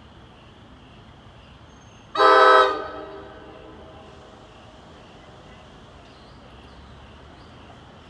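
Approaching passenger train's horn sounding one short blast, about half a second long, several tones sounding together, with an echo trailing off after it.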